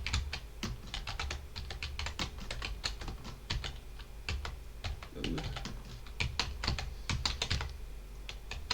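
Computer keyboard being typed on steadily, with several uneven keystroke clicks a second during a typing-speed test.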